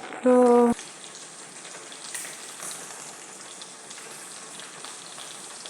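Chicken frying in oil in a pot: a steady sizzle with faint scattered crackles. A brief vocal sound comes just at the start.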